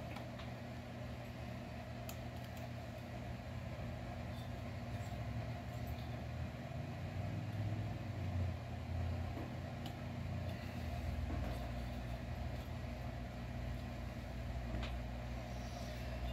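Steady low mechanical hum, swelling a little midway, with a few faint clicks as small chainsaw parts are set down on the workbench.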